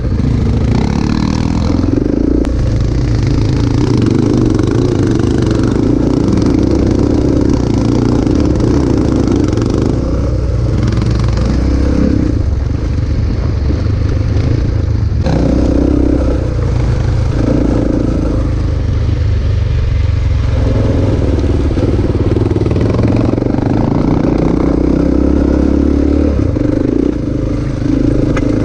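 Trail motorcycle engine heard from on board as the bike rides a rough dirt track, its pitch rising and falling repeatedly as the rider works the throttle and gears, with a sudden break about halfway through.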